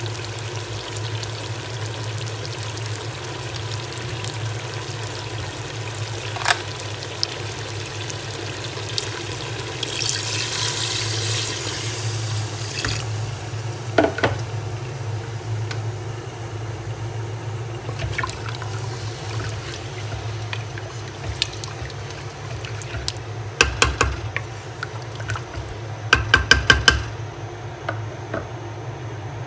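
Water being poured into a pot of fried mutton and potatoes to make the broth, with a splashing pour about ten seconds in. A few sharp metal clicks follow, then a quick run of clicks near the end, over a steady low hum.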